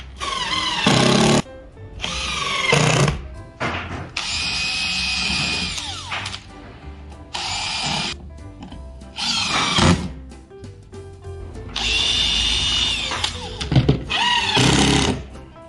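Cordless drill drilling countersunk pilot holes and driving screws into spruce leg braces, in about seven separate runs of one to two seconds; the motor's whine sags in pitch as it bites into the wood, a couple of runs held steadier for about two seconds.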